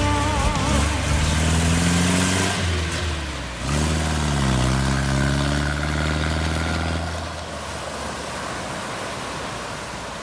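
Engine of a 1972 Mitsubishi Jeep (Willys type) revving under way: the pitch climbs, drops sharply and dips a few seconds in, then rises again and holds before fading out about three-quarters of the way through.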